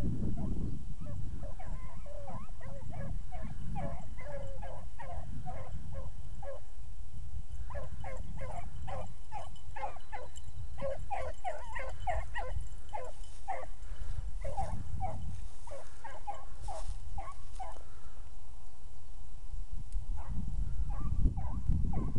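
A pack of rabbit hounds giving tongue in quick, repeated chop-mouth yelps as they run a rabbit's track, with a short pause about six seconds in and the yelping dying away a few seconds before the end. A steady low rumble lies beneath.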